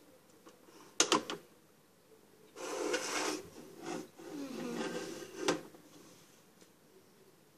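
Pie Face game's spring-loaded plastic hand snapping up with a sharp clatter about a second in. Then a few seconds of scraping and rubbing against the plastic and cardboard game, ending with another knock.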